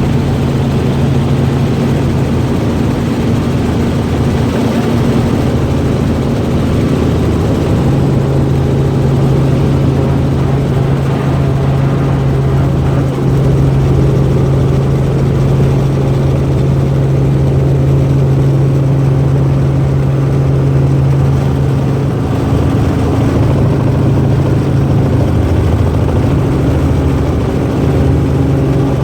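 Helicopter engine and rotor running with a steady, loud drone.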